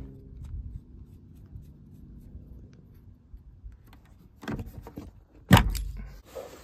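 Quiet handling noises with a few clicks, then one loud, sharp thump about five and a half seconds in, followed by rustling.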